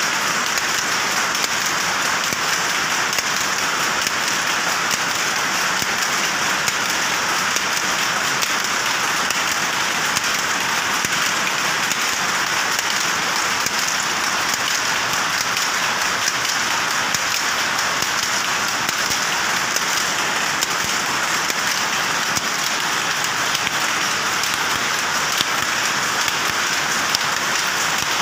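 Powerloom running at full speed while weaving cloth: a loud, steady, dense, rapid mechanical clatter that goes on without a break.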